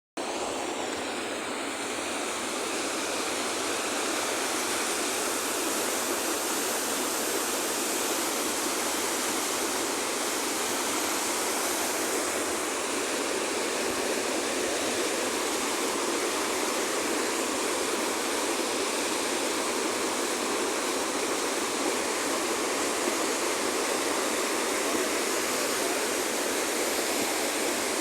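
Steady rushing of flowing water, unchanging throughout.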